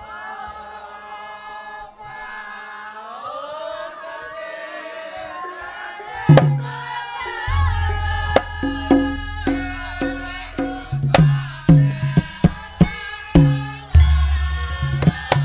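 Javanese gamelan music: a sustained, gliding melody for the first few seconds, then from about six seconds in the hand-drum strokes of a kendang enter in a lively rhythm, each stroke dropping in pitch, over a deep steady bass.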